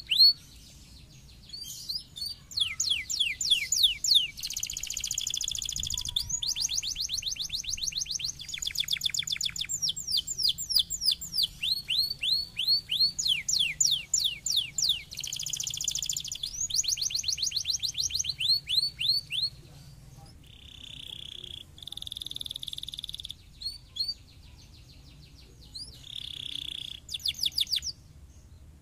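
Domestic canary singing fast trilled song: rapid runs of repeated falling whistled notes, changing phrase every second or two, broken by buzzy rolls and short pauses after about twenty seconds.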